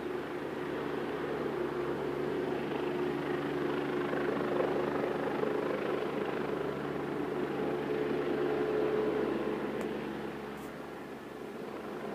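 Firefighting helicopter flying some way off: a steady engine and rotor drone that grows a little louder through the middle and eases off near the end.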